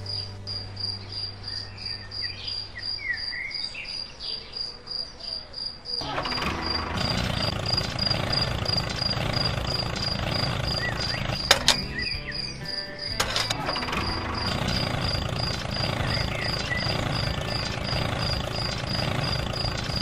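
An insect trilling on one high pulsing note throughout. About six seconds in, a louder steady broad noise joins it, with one sharp click a little before the middle.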